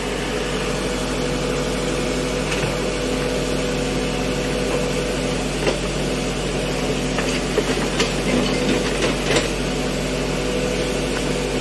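Backhoe loader's diesel engine running steadily, with a few short sharp knocks of rubble scattered through it.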